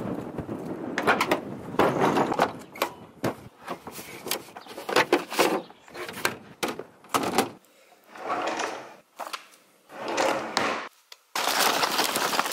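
Clicks, knocks and rustles of a plastic truck-bed storage case being opened and handled. Near the end comes a denser rustle of a hand rummaging through boxed fishing lures in a cardboard box.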